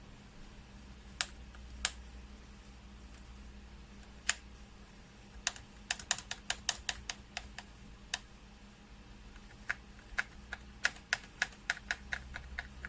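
Keys of a RedThunder K900 semi-mechanical keyboard being pressed: a few single clicks, then two runs of quicker keystrokes, one about halfway through and one near the end.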